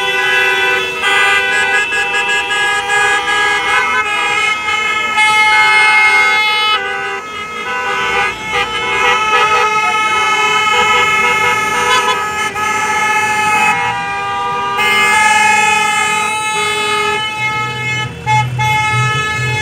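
Many car horns honking together in long, overlapping blasts as a convoy of cars drives past, with the cars' engines and tyres underneath.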